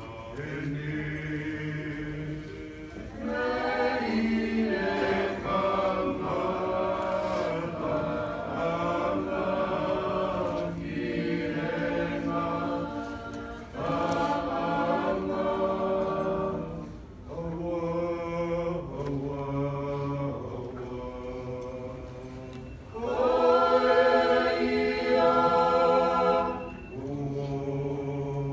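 A small choir of men's and women's voices singing a hymn together, in slow phrases with short breaks between them, swelling loudest about three-quarters of the way through.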